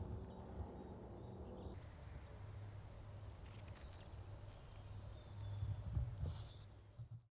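Quiet woodland ambience: scattered faint, short bird chirps over a steady low rumble, fading out near the end.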